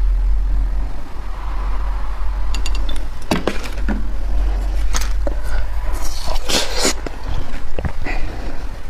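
Blue drink poured from a plastic bottle trickling over a cone of ice in a glass mug for the first few seconds. Then crackling and clinks from the ice, and crunches as the ice tip is bitten off, loudest around six to seven seconds in, over a steady low hum.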